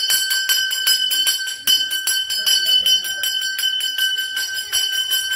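Pooja hand bell rung rapidly and without a break, about five strikes a second, over a steady high ring, as is done while the lamp is waved during a Hindu aarti.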